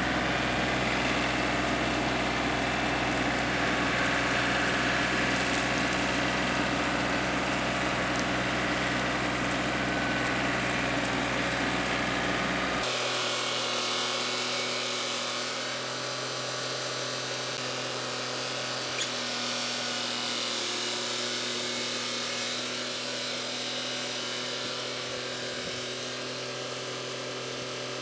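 Tractor engine running steadily, as when dragging a chained log. About thirteen seconds in the sound changes abruptly and loses its deep low end, then runs on a little quieter.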